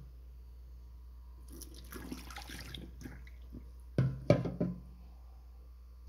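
Water poured out of a plastic jug into a stainless steel sink, splashing for a second or two. About four seconds in come a few sharp knocks on the steel, the loudest sounds.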